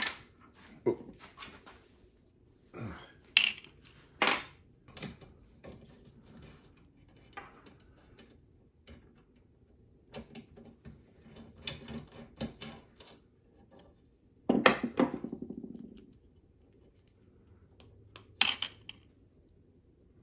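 Small metal hardware and hand tools clinking and clattering as screws, bolts and belt parts are taken off a CNC router. The clicks come at uneven intervals, and one louder clank about two-thirds of the way through rings on briefly.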